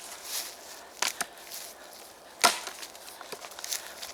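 Axe chopping wood: two lighter knocks about a second in, then one loud, sharp chop about two and a half seconds in.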